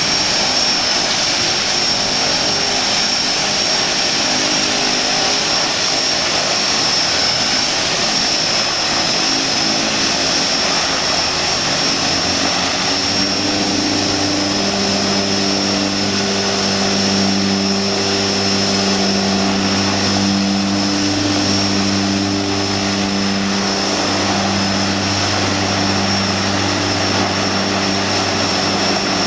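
The twin Pratt & Whitney Canada PT6A turboprop engines of a de Havilland Canada DHC-6 Twin Otter floatplane are running at idle after start-up, with a steady high turbine whine over the rush of the propellers. About halfway through, a low propeller drone comes in and swells and fades slowly.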